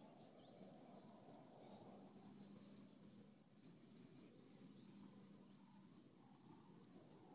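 Faint insect chirping, like a cricket: a short high-pitched chirp repeated steadily, about one to two a second, over a faint background hiss.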